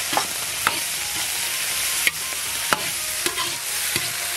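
Green and red chili peppers and sauce sizzling in a hot wok, stirred with a metal spoon. The spoon scrapes and knocks against the wok about half a dozen times.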